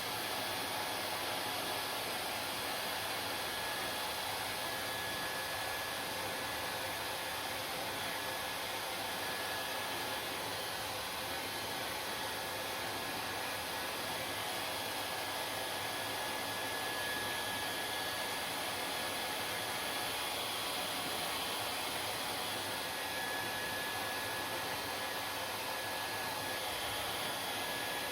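Hair dryer running steadily: an even rush of blown air and motor noise, with a faint high tone that fades in and out.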